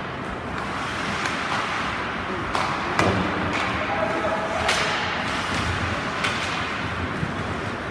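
Ice hockey play: several sharp clacks of sticks on the puck, the loudest about three seconds in, over a steady scrape of skates on the ice.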